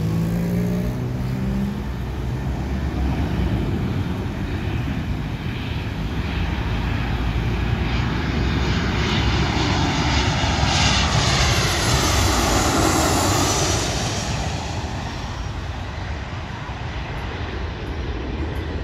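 Boeing 737-800 jet on approach to land, its CFM56-7B turbofan engines growing louder as it passes low overhead. The engine whine slides down in pitch as it goes by, about ten to thirteen seconds in, then fades away.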